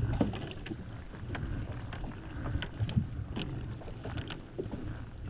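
Wind rumbling on the microphone aboard a small fishing boat at sea, with scattered light clicks and knocks.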